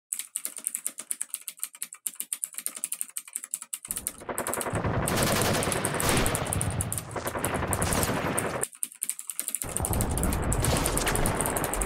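Experimental noise music: rapid dry clicking for about four seconds, then a loud, dense crackling clatter that cuts out for about a second near the end and comes back.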